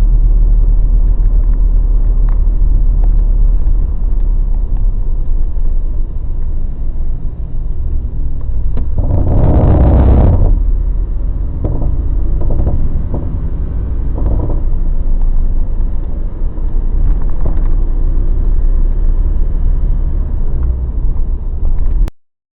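Mazda BT50 pickup on the move: a loud, steady low rumble, a louder grinding surge about nine seconds in, then a series of knocks, the clunking and grinding noise of the truck's drivetrain fault.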